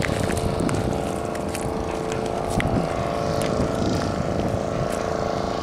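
Steady engine drone with a constant hum, and a few sharp clicks over it.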